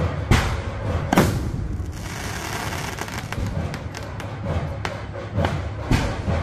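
Fireworks going off overhead: two loud bangs in the first second or so, then a scatter of smaller cracks and pops, and another bang near the end.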